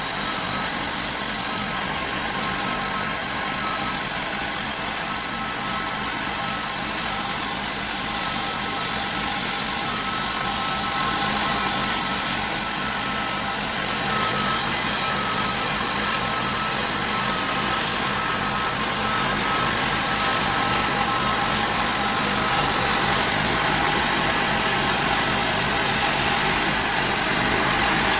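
Bandsaw mill running steadily: an engine drone with a steady high whine over it, unbroken and slowly getting a little louder.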